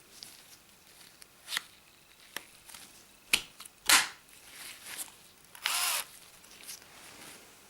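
Handling noises from the cordless drill kit and its battery: scattered light clicks and knocks, the sharpest about four seconds in, and a short rustle or scrape near six seconds.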